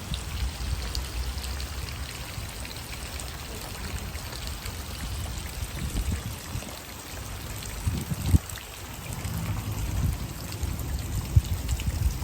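Water falling in a curtain and splashing steadily, like a small cascade. A low rumble runs under it, and there are two sharp thumps about eight and eleven seconds in.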